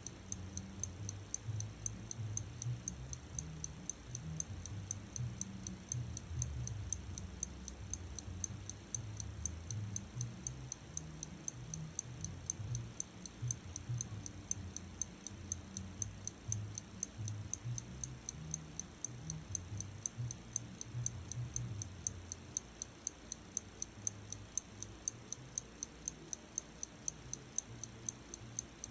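Pocket watch ticking steadily in a fast, even rhythm, with a low bass rumble underneath that eases off about three quarters of the way through.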